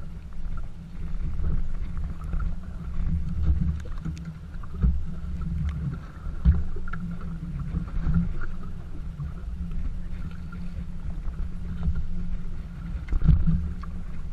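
Choppy lake water lapping and slapping close by, with wind rumbling on the microphone. There are a few sharper thumps, about five, six and a half and thirteen seconds in.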